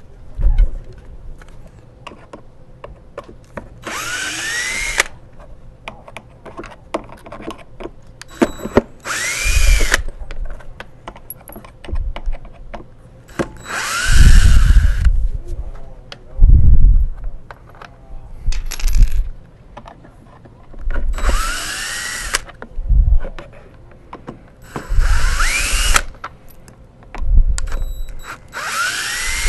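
Cordless drill with a Phillips bit backing screws out of the wet/dry vacuum head's housing in about seven short bursts, each whine rising as the motor spins up and falling as it stops. Small clicks and knocks of handling come between the bursts.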